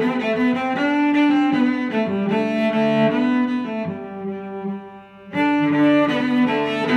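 Background music of slow, held bowed-string notes, with the cello to the fore. The music thins out and dips about four and a half seconds in, then a new chord swells in about half a second later.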